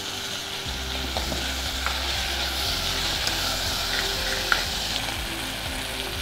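Chopped narthangai (citron) pieces sizzling as they fry in sesame oil in a stone kalchatti pot, stirred with a steel ladle that gives a few small scrapes and taps.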